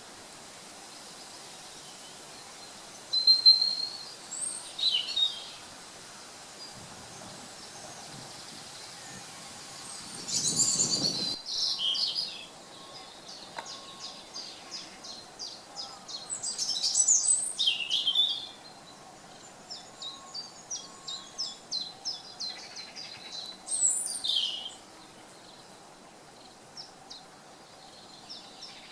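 Woodland songbirds singing and calling: several loud high phrases come and go, with a rapid run of short high notes through the middle, over a steady faint hiss.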